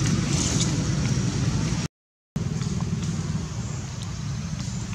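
Steady low rumble, cutting out to complete silence for about half a second around two seconds in.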